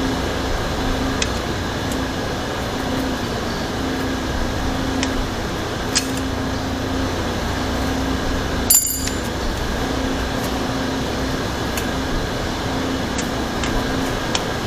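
Scattered sharp metallic clicks and clinks of hand tools being worked on a bicycle, with one louder clank about nine seconds in, over a steady fan-like hum.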